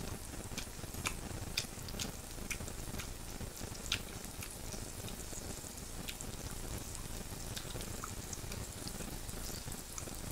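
Pork belly slices sizzling on an electric grill pan: a steady frying hiss with scattered sharp crackles and pops of spitting fat.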